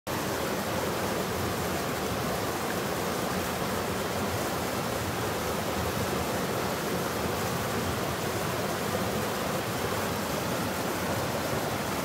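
Mountain stream rushing over rocks in small cascades and rapids: a steady, unbroken rush of water.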